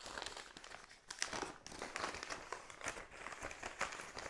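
Brown kraft paper bag crinkling as it is handled and unfolded, a run of irregular crackles.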